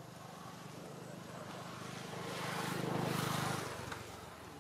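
A motor vehicle passing by: its engine noise swells to a peak about three seconds in, then fades away.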